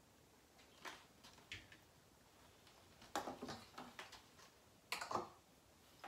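Light knocks and clatter of brewing equipment being handled: a couple of taps about a second in, a cluster of clatter around three seconds, and a sharper knock near five seconds.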